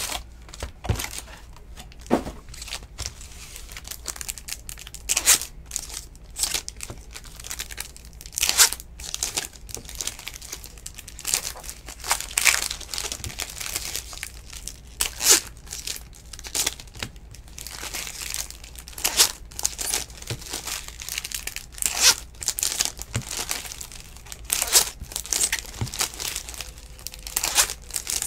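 Crimped foil wrappers of Bowman baseball card packs being torn open and crinkled by hand, in irregular sharp rips and crackles.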